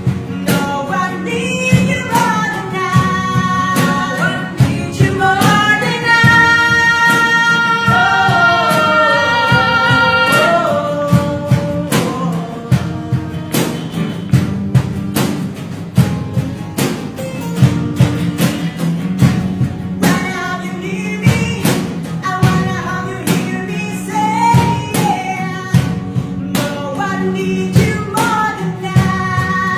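Teenage boys singing a song, with long held high notes near the middle, over a steady rhythmic accompaniment.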